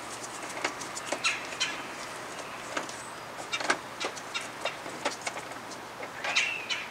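Irregular light clicks of a hand tool on a bolt as it is backed out of a 2018 Honda Gold Wing's side panel. There is a short high chirp near the end.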